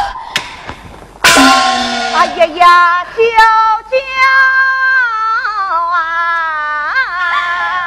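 Yue opera music: a sudden loud percussion crash about a second in, then a slow melody of long held, wavering notes, a female singing voice with the opera band's accompaniment.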